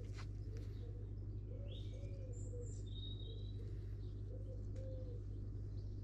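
A pigeon cooing outdoors in a few repeated phrases, with a small bird chirping briefly in between. A steady low hum runs underneath.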